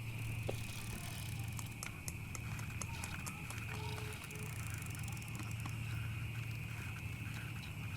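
Bicycle being ridden at night: a steady low rumble from the ride, with scattered small clicks and ticks, over a steady high drone of night insects.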